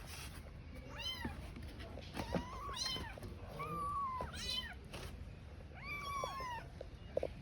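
Young kitten meowing repeatedly: about six high cries, each rising then falling in pitch. These are distress calls for its absent mother.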